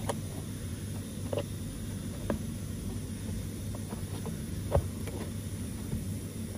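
Scattered small clicks and taps of a hand working the plastic trim clips under a 2017 Peugeot Partner van's front bumper, with the sharpest tap a little under five seconds in. A steady low hum runs underneath.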